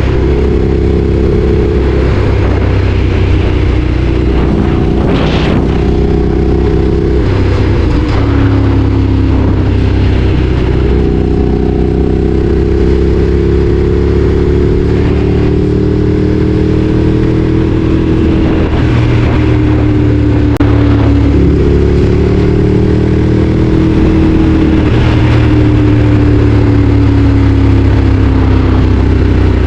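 Ducati Streetfighter 848's L-twin engine running under way, its pitch drifting slowly up and down as the revs change, with a few brief rushing sounds.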